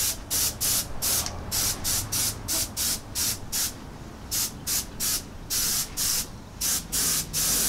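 Airbrush spraying DuraCoat firearm finish in short, rapid bursts of hiss, about four a second, with a brief pause near the middle and another just before the end. This is a light coat being built up little by little in quick passes.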